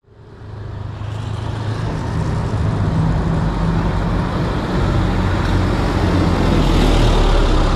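Road traffic at a railway level crossing: engines of cars and motorbikes running as they approach along the road, a steady low drone with road noise that fades in over the first second and slowly grows louder.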